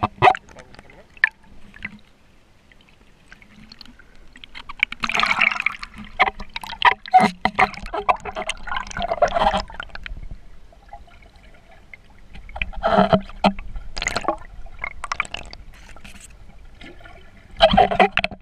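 Water bubbling and gurgling, heard from just below the surface, in three bunches of crackly splashing: one about five seconds in lasting several seconds, a shorter one around thirteen seconds, and one near the end.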